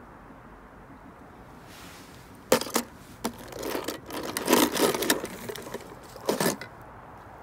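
Die-cast metal toy cars knocking and clattering against each other and a plastic tub as they are handled: two sharp clicks, then a dense run of knocks, and one more knock near the end.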